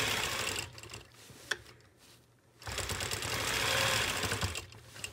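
Longarm quilting machine stitching along a circle ruler in two runs: it stops about a second in, with a single click in the pause, then runs again from about three seconds in until shortly before the end.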